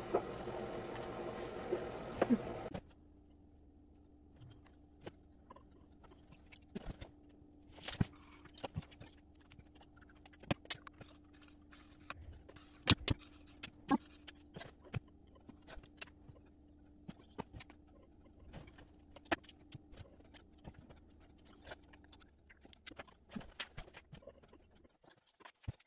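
Scattered light clicks and taps from handling painting tools at a table, such as a fine brush against the plastic rotary dial and paint bottles set down, over a faint steady hum. A louder steady noise at the start cuts off suddenly after about three seconds.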